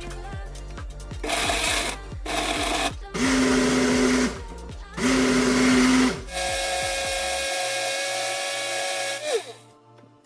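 Electric blender motor run in several short bursts, then steadily for about three seconds before it switches off with a falling whine as it spins down, while blending a smoothie.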